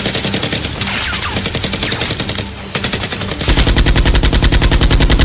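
Dubbed-in automatic gunfire sound effect: a rapid machine-gun rattle of many shots a second, which turns louder and heavier about three and a half seconds in.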